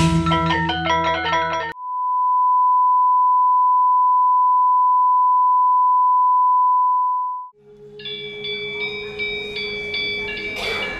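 Mallet-percussion music stops abruptly about two seconds in and is replaced by a loud, steady, pure beep tone held for about six seconds. The tone cuts off, and bright, ringing mallet-percussion music with a bell-like melody and a low steady drone starts a little later.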